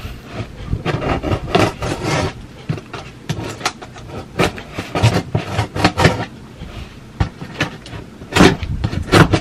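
Cardboard shipping box being cut and worked open: a run of irregular scraping, rasping strokes, with a louder cluster near the end.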